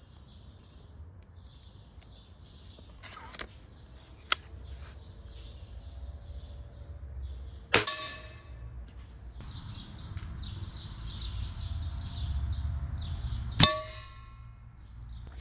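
Two .22 air rifle shots with pellets striking a metal pan, about six seconds apart: each a sharp crack followed by a short metallic ring. Birds chirp in the background, and a couple of lighter clicks come before the first hit.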